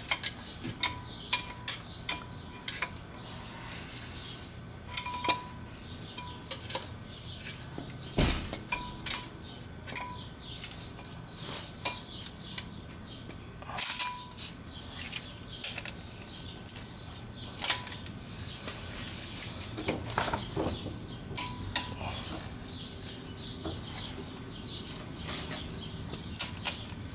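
Metal hand tools clinking and tapping during clutch work on a 2006 Volkswagen Jetta: a string of irregular light clicks and knocks, some with a brief metallic ring.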